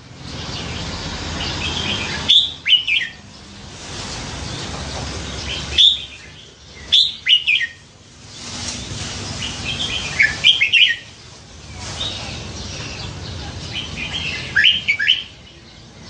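Caged red-whiskered bulbul singing short, quick warbled phrases, about five in all, spaced a few seconds apart, over a steady background hiss.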